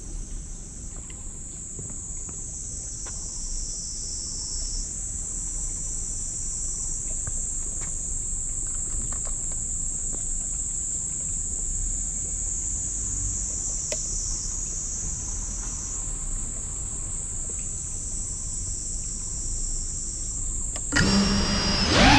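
FPV quadcopter's brushless motors idling while armed on the ground: a steady high whine that dips in pitch now and then over a low rumble. About a second before the end the motors throttle up loudly for takeoff, several tones bending up and down.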